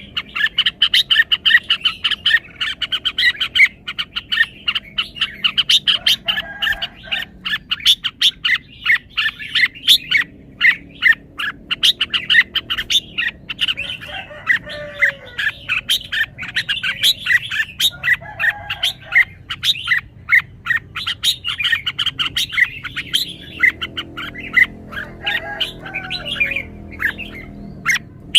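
Red-whiskered bulbul singing, a quick, unbroken run of bright chirping notes.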